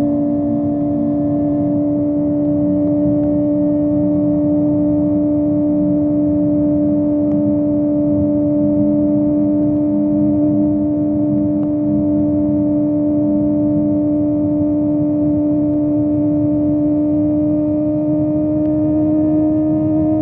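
Kawasaki ZX-25R's 250 cc inline-four engine, fitted with a Yoshimura exhaust, running at a steady high-rev cruise, its pitch creeping up slightly, over a constant rush of wind and road noise.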